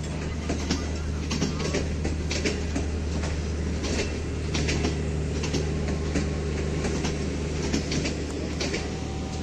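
Passenger coaches of a departing train rolling slowly past, their wheels clicking over rail joints at an uneven beat over a steady low hum.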